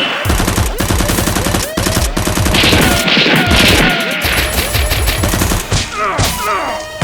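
Rapid, sustained automatic gunfire with many overlapping shots, the gunshot sound effects of a staged gunfight, with a few falling whizzing tones mixed in.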